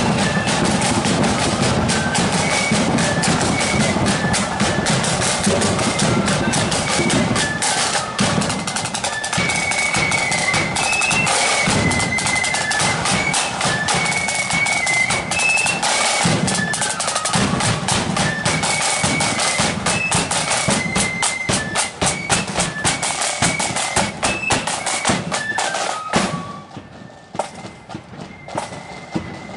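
Marching flute band playing a tune, with the flutes carrying the melody over snare drums and a bass drum. About 26 seconds in the tune ends on a falling run and the music drops away, leaving quieter sharp taps.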